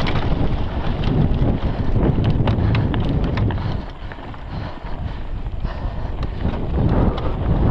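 Wind buffeting the microphone of a mountain bike's onboard camera as the bike descends dry dirt singletrack at speed, with tyre noise on loose dirt and many sharp clicks and rattles from the bike jolting over the rough trail. The rush dips for about a second near the middle.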